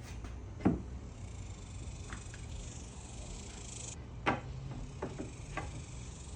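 Two sharp knocks, about a second in and just after four seconds, with a few lighter taps, over a steady low hum. A high buzzing hiss stops shortly before the second knock.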